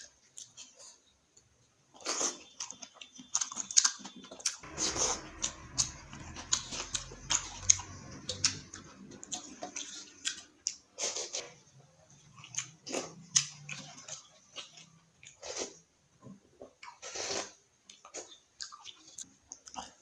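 A person chewing food close to the microphone, with wet mouth sounds and irregular soft clicks and crackles.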